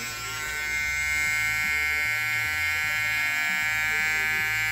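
Small cordless electric hair trimmer running with a steady buzz as it is run over forearm hair, cutting it.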